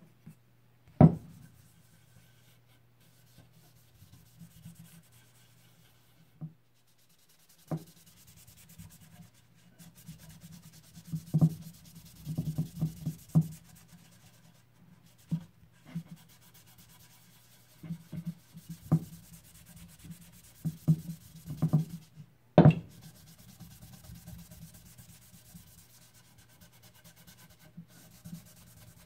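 Cloth rubbing paste wax onto a hardwood axe handle, with scattered knocks and clicks from the handle and tools shifting on the bench; one sharp knock comes about a second in and another about three-quarters of the way through.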